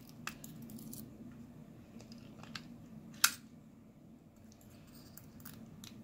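Lock pick and tension wrench working in the keyway of a Yale six-pin mortise cylinder: a few faint metallic ticks and one sharp click about three seconds in, over a low steady hum.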